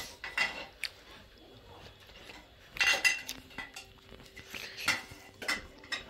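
Dishes and metal utensils being handled, giving a handful of sharp clinks and knocks at irregular spacing, the loudest about halfway through.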